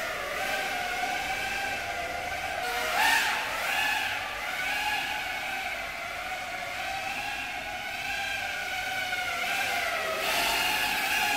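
FPV racing quadcopter's brushless motors and propellers whining, the pitch rising and falling with the throttle. It swells loudest about three seconds in, with a quick rise and fall in pitch, and swells again near the end.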